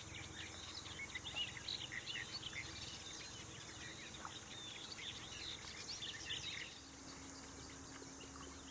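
Many small birds singing and chirping at once, a dense mix of short high chirps and trills that thins out near the end, when a faint steady low hum starts.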